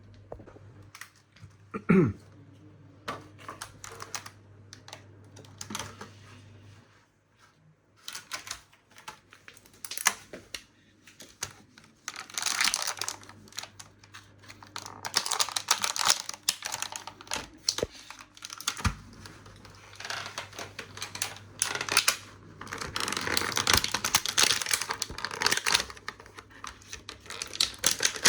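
Toy packaging being handled as an action figure is freed from its box: rapid clicking, rattling and crinkling of plastic and cardboard, densest in two stretches around the middle and toward the end.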